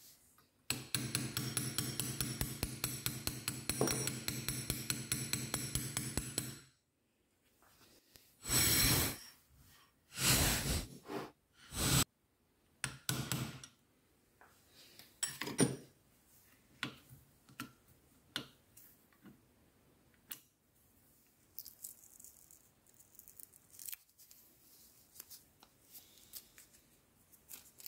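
Bench work on a small metal lathe gearbox: hand tools and small metal parts clinking and tapping. A steady humming, fluttering sound lasts about six seconds near the start. Several short loud rushing bursts follow, and then faint scattered ticks.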